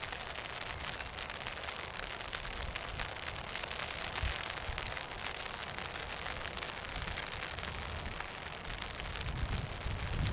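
Wind buffeting the microphone in uneven low rumbles that swell near the end, over a steady crackling rustle.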